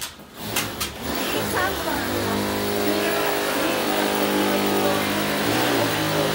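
A couple of knocks, then a steady motor-like hum over a rushing noise.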